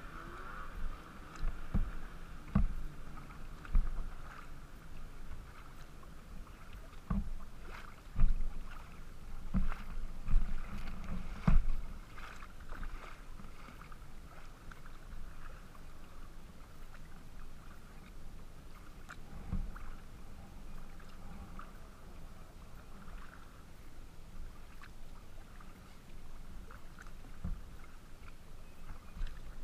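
Pungo 140 kayak under paddle: water swishing and splashing along the plastic hull, with irregular low knocks. The knocks are frequent in roughly the first twelve seconds and sparser after.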